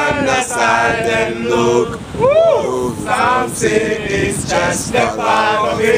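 A group of voices singing together without instruments, in held notes, with one voice swooping up and back down in a whoop about two and a half seconds in.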